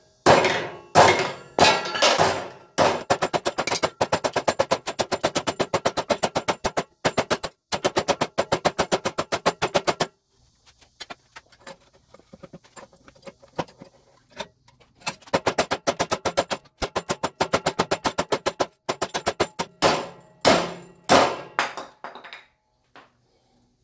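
Heavy 80CrV2 steel cleaver chopping repeatedly into the end of a wooden 2x4, sharp woody chops coming several a second. The chops thin out to scattered knocks about ten seconds in, pick up again about fifteen seconds in, and end with a few heavier blows.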